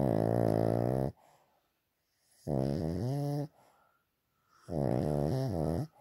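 Dog snoring in its sleep: loud, pitched snores, each about a second long with quiet pauses between. One snore ends about a second in, and two more follow about two seconds apart.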